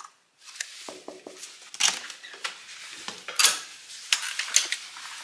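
A run of sharp clicks, knocks and light clatter from a hotel room door being opened with its key-card lock and lever handle.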